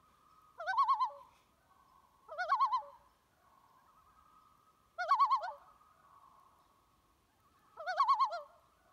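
Common loon giving four short tremolo calls, each a quick quavering laugh, spaced two to three seconds apart over a faint steady tone.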